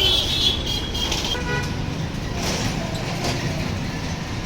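A truck engine running with a steady low rumble, and a high horn-like tone that stops about a second in.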